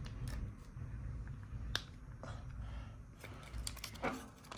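Scattered light clicks and crinkles of an MRE strawberry jam packet being handled and opened, over a faint low hum.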